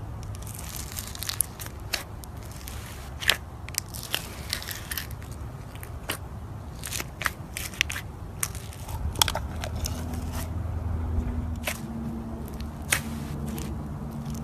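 Slime being squeezed and pressed by hand, giving scattered sharp crackles and pops. A low steady hum comes in about ten seconds in.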